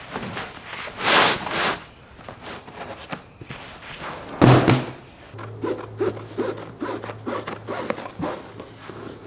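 Sheet vinyl flooring being unrolled and slid across a plywood panel, rustling in two loud swishes, then scissors cutting through the vinyl in a run of short snips, about three a second.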